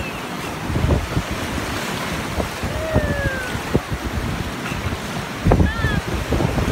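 Shallow surf washing in around the feet, with wind gusting on the microphone twice. A few faint, short high calls in the distance.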